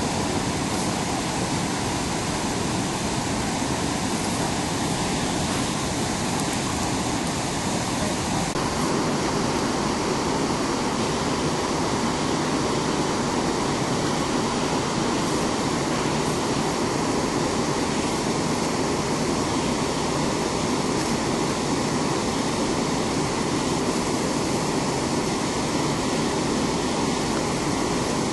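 Steady rushing of a creek's white water tumbling over rocks in a shallow cascade.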